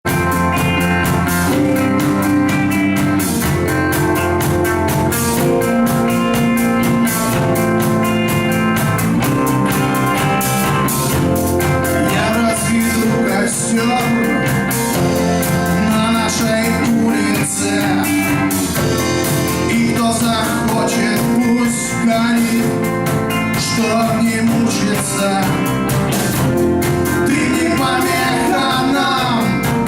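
Rock band playing a song, with guitar over a steady drum beat.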